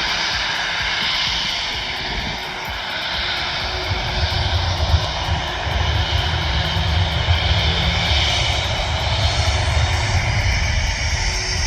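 Jet airliner's engines running as it passes: a steady high whine, joined about four seconds in by a deep rough rumble that stays loud to the end.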